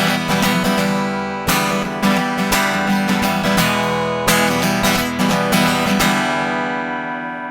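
Acoustic guitar strummed, chords ringing between the strokes; about six seconds in, a last chord is left to ring and fade out.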